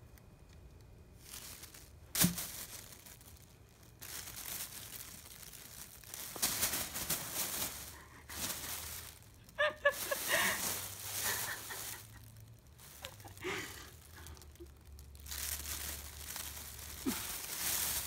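Thin plastic bag crinkling and rustling in repeated bursts as a cat moves about inside it, with a single sharp knock about two seconds in.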